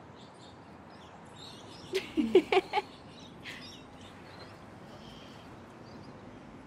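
Small birds chirping faintly in the background, scattered high chirps throughout. About two seconds in, a brief burst of a person's voice in four quick pulses stands out as the loudest sound.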